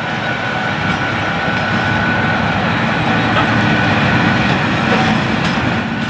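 MÁV V43-family (class 431) electric locomotive rolling slowly past, a loud steady rumble of its running gear and equipment with a thin, steady high whine over it.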